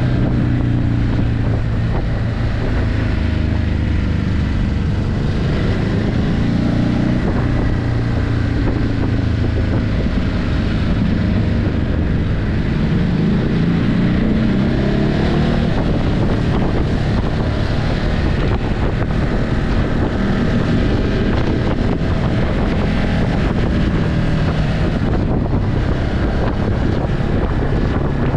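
Ducati Hypermotard 950's 937 cc L-twin engine running through its stock exhaust while riding, with the revs rising and falling as it pulls and shifts. The engine pitch climbs for a few seconds around the middle and then drops back. Wind buffets the microphone throughout.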